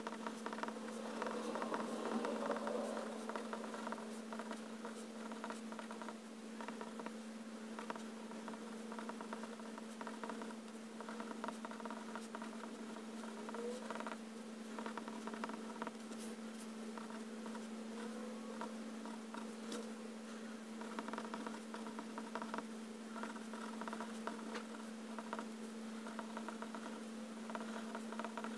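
Extra-fine steel nib of a Pilot Penmanship fountain pen scratching faintly across paper in short strokes as letters are written. Under it runs a steady low hum.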